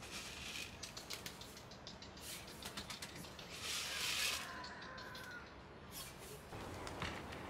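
Rustling and light clicks as a pigeon is handled in a man's hands, with a short louder rustle about four seconds in.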